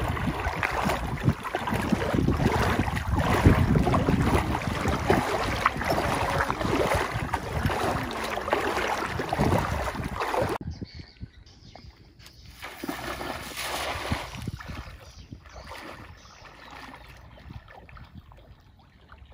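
Legs wading through thigh-deep floodwater: a continuous run of sloshing splashes. About ten seconds in it cuts to a much quieter stretch of faint water and wind noise.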